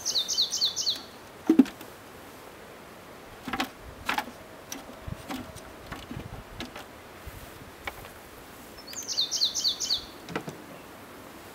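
A songbird sings a short phrase of about five quick, high, downslurred notes, twice, about nine seconds apart. In between come a few sharp knocks and clatters as plastic hive frames are lifted out and handled, the loudest about a second and a half in.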